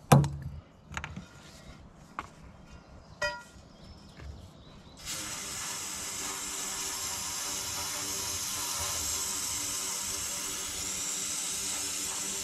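A few light knocks and clicks, then, about five seconds in, an aerosol can of brake cleaner starts spraying with a steady hiss down a long pipe.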